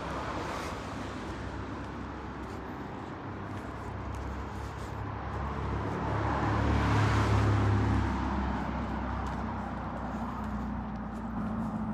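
A car driving past on the road, its engine and tyre noise building to loudest about two-thirds of the way through and then fading away.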